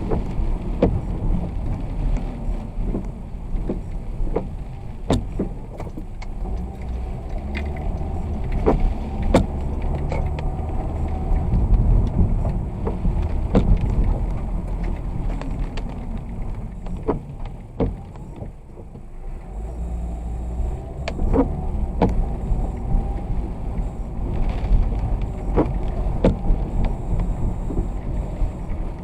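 A vehicle driving on a wet road in the rain: a steady low rumble of road and tyre noise, with scattered sharp ticks throughout and a brief lull about two-thirds of the way in.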